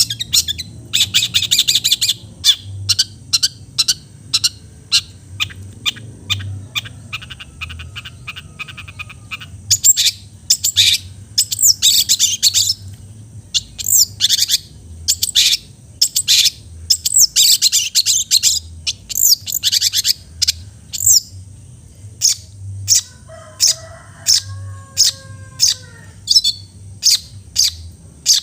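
Long-tailed shrike (cendet) singing: quick runs of sharp, high chattering notes and harsh calls, repeated many times, over a low steady hum.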